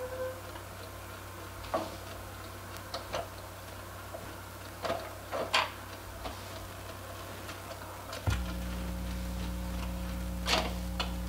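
Scattered clicks and knocks of 45 rpm records and the stack arm being handled on the spindle of a 1950s RCA Victor record changer. About eight seconds in, a steady low hum starts as the player is switched on, followed near the end by two clicks of the changer mechanism.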